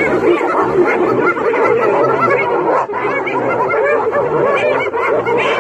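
A clan of spotted hyenas giggling and whooping together in a dense chorus of overlapping, rapid rising-and-falling calls. This is the excited giggling of hyenas mobbing a lion.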